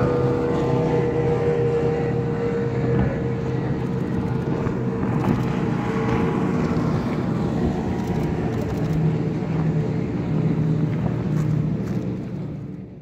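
Several speedboats running fast across the water, their engines droning steadily. The sound fades out at the very end.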